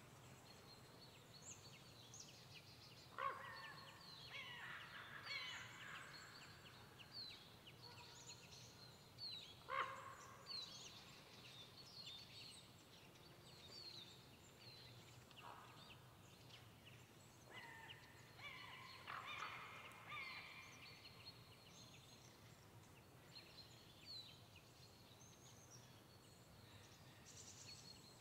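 Quiet pine-forest ambience: small birds giving short, high calls throughout, with louder, harsher crow calls about three seconds in, about ten seconds in, and again around twenty seconds, over a faint low background rumble.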